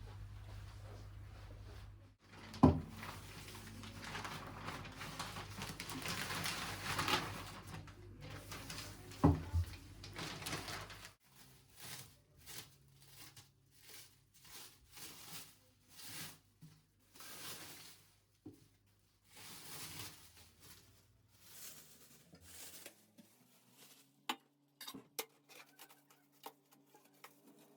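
Kitchen handling sounds: two sharp knocks of dishes over a stretch of hissing noise, then a run of short soft taps and rustles, about one a second.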